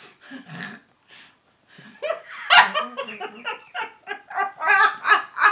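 A woman laughing in a run of repeated bursts as a puppy plays with her, starting about two seconds in and getting quicker and more even near the end.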